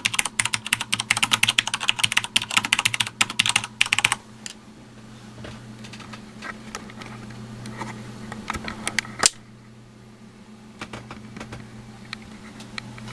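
Fast typing on a Sanwa Supply SKB-MK2BK mechanical keyboard: a dense run of rapid key clicks that stops about four seconds in. After that come only scattered single keystrokes, with one sharp, loud click about nine seconds in.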